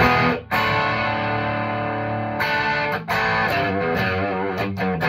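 Telecaster electric guitar played loud through a Marshall JCM 800 valve amp: ringing chords, with short breaks about half a second in and about three seconds in, then bent, wavering notes over the last couple of seconds.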